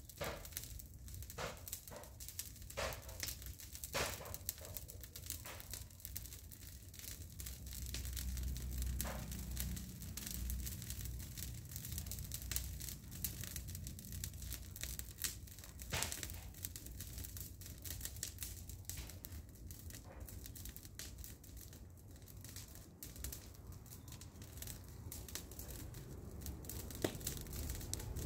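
Irregular crackling and clicking, like dry material rustling, over a low rumble of wind on the microphone that swells about a third of the way in.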